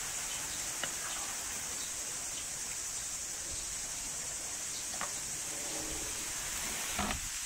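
Steady high-pitched hiss of outdoor background, with a few light taps of a wooden spoon against a metal pot as sauce is spooned onto the rice.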